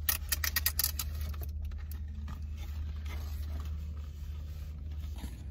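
Cardboard and paper fast-food packaging being handled, rustling and crinkling: a quick run of clicks and crackles over the first two seconds, then quieter handling. Under it runs a steady low hum inside the car.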